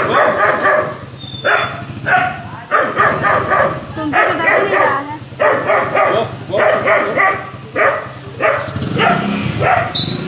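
Young German Shepherd barking in quick runs of short, high barks, with brief pauses between the runs.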